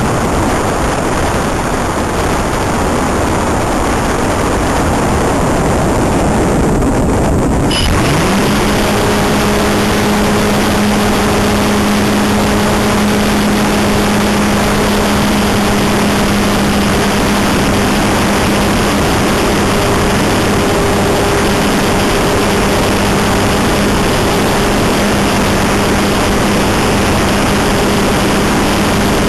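Wind rushing past a Multiplex Cularis electric glider's onboard camera as it glides with the motor off. About eight seconds in, the electric motor and propeller start up with a quick rise in pitch, then hold a steady hum over the wind noise while the model flies under power.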